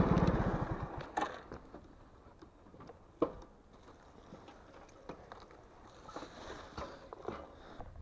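Footsteps crunching through dry grass and brushwood, with scattered twig snaps and one sharper crack about three seconds in. A loud low rumbling noise fades away over the first second or so.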